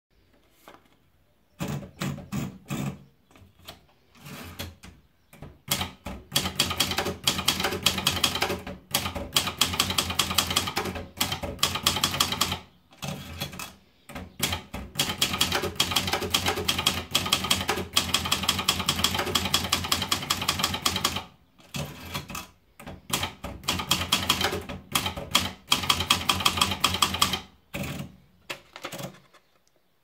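Imperial Signet manual portable typewriter: a few scattered clicks as the paper is rolled in, then rapid keystrokes in three long runs of typing with short breaks between them.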